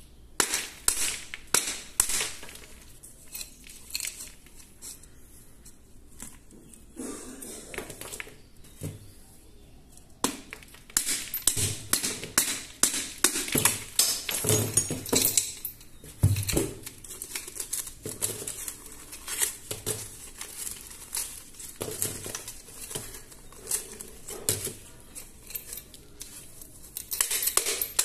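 Steel claw hammer tapping over and over on a fired-clay (terracotta) piggy bank, chipping the clay shell until it cracks open. Sharp taps come in quick runs, with a quieter spell of several seconds in the first half.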